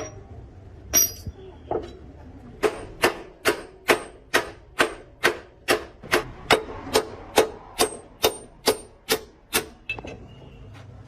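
Hammer blows in a steady run of about seventeen strikes, roughly two a second, starting a little over two and a half seconds in and stopping shortly before the end, with a single knock about a second in.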